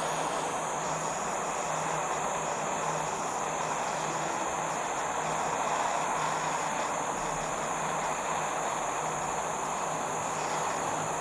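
Small pocket-sized gas torch burning with a steady hiss.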